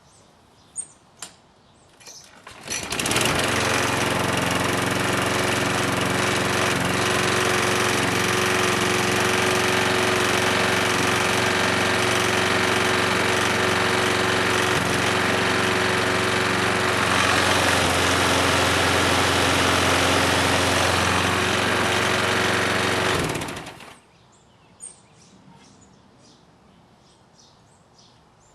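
A walk-behind lawn mower's small engine, which has not been run in about a week, starts up about three seconds in. It runs at a steady speed for about twenty seconds, then is shut off and stops suddenly.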